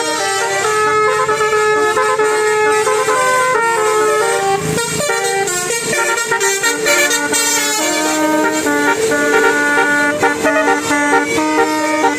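Horns sounding loud sustained notes, several pitches at once, changing from note to note like a tune.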